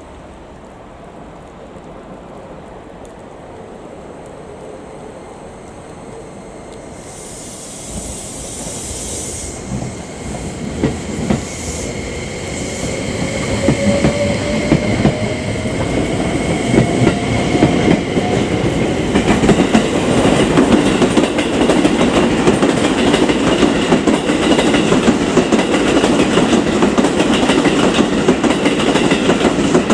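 A three-car JR West 271 series electric multiple unit pulling away: a short hiss of air about eight seconds in, then the traction motors whining up in pitch as it gathers speed. Wheels clack over rail joints and points, growing louder as the cars roll past.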